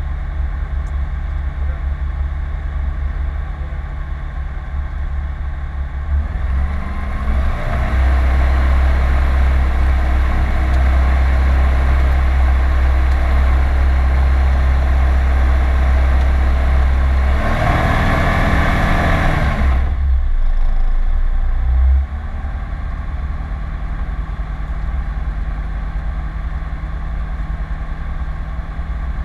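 Rotax 912 flat-four engine of a PS-28 Cruiser light aircraft running steadily. About six seconds in it is throttled up to a loud, steady high-power drone that holds for around fourteen seconds, then drops back sharply to a lower power setting a little past twenty seconds.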